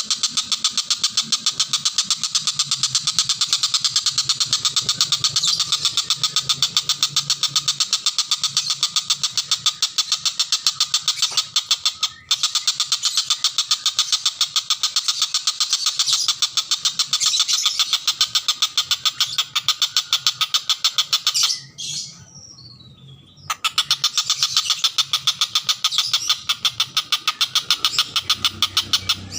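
A tengkek buto (kingfisher) calling nonstop in a rapid, loud chattering rattle of sharp repeated notes. It breaks off for about two seconds a little after the middle, then resumes.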